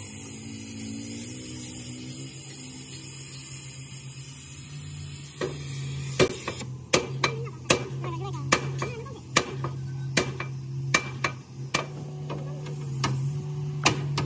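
Sledgehammer striking a steel truck chassis rail that is being heated with a gas torch: about a dozen sharp metallic blows, roughly one every 0.7 seconds, starting about five seconds in. A steady low hum runs underneath.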